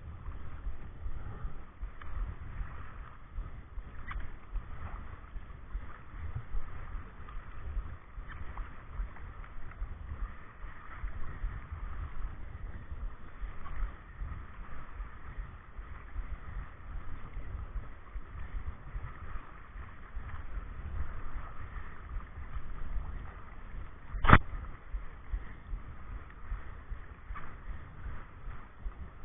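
Kayak on moving whitewater: steady rushing water, with wind buffeting the microphone in uneven low rumbles. One sharp knock near the end is the loudest sound.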